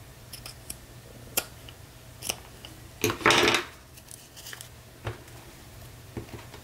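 Small spring-loaded craft snips cutting lace trim: a few sharp snip clicks, then a louder rustling burst about three seconds in, followed by light clicks of paper and lace being handled.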